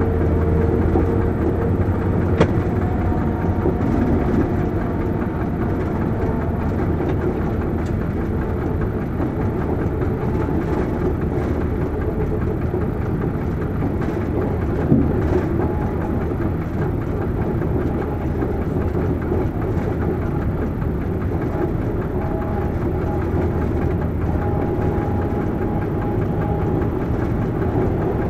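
Cab of an SNCF BB 67400-series diesel locomotive (BB 67580) running light: a steady diesel engine drone with a low hum and several steady tones, over the wheels running on the rails. Two sharp clicks stand out, about two seconds in and again about fifteen seconds in.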